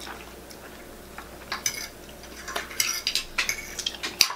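Metal forks clinking and scraping against dinner plates as food is picked up, a scatter of short sharp clicks that gets busier in the second half.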